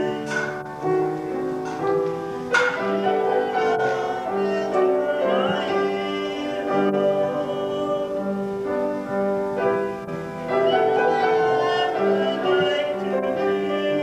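Music with piano, and held notes that change every second or so.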